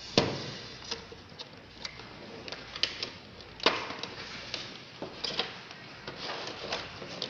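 A headphone box and its packaging being handled and opened by hand, with scattered clicks and rustling. The loudest knock comes about a quarter second in, and a second strong one just before the four-second mark.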